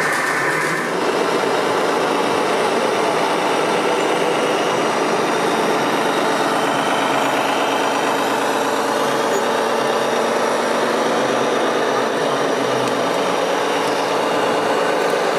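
Scale RC model trucks running, a steady mix of truck engine sound from their onboard sound units.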